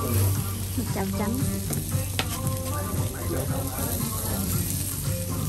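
Marinated meat sizzling as it fries in an oiled pan, over a steady low hum, with one sharp click a little after two seconds in.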